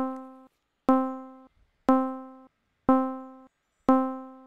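ES1 software synthesizer in Logic Pro repeating the note C about once a second, five notes at even loudness. Each note starts sharply and fades quickly before cutting off: the amplifier's ADSR envelope is set to a short attack, a short decay to a very low sustain, and a short release.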